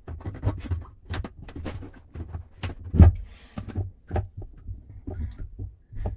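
Irregular knocks, clicks and clunks of washing-machine parts being handled and fitted back together, the loudest knock about three seconds in.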